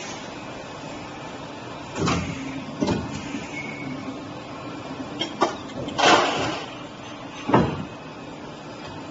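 Plastic injection moulding machine cycling a multi-cavity ketchup cap mould over a steady hum. A heavy knock comes about two seconds in as the mould opens. Clicks and a rushing burst follow about six seconds in as the caps are ejected, then another knock.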